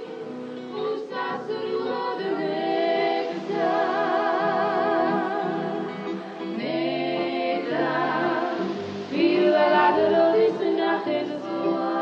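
Closing-credits music: a singing voice with vibrato over sustained accompaniment, louder from about nine seconds in.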